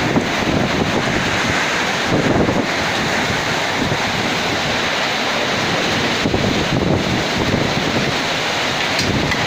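Rainstorm: heavy rain and strong gusting wind in a steady wash of noise, with wind buffeting the microphone and a louder gust about two seconds in.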